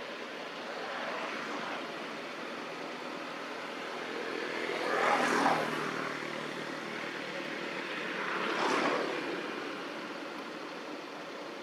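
Motor vehicles passing by, each one swelling and fading. The loudest pass is about five seconds in and another comes about nine seconds in, over a steady background hum.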